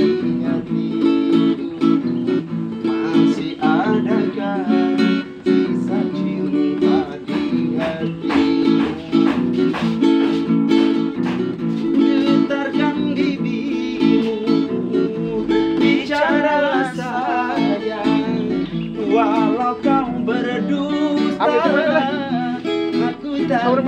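Acoustic guitar strummed in a steady rhythm, with a voice singing along over it, most clearly in the second half.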